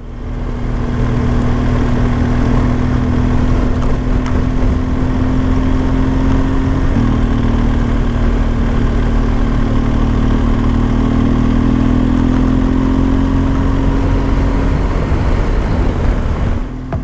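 Motorcycle engine running steadily under way, with wind rush. Its pitch steps down once about seven seconds in, then climbs slowly.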